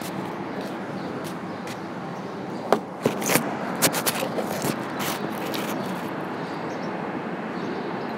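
Steady outdoor background noise with a cluster of clicks, knocks and scrapes about three to five seconds in, from a smartphone being handled and set in place.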